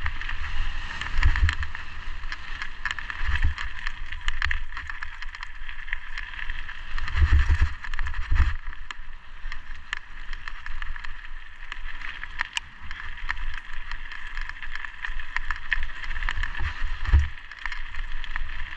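Mountain bike running fast down a dirt and gravel forest singletrack: a continuous hiss of knobbly tyres over loose stones and dirt, dense with clattering rattles from the bike over rough ground, and heavy low thumps several times.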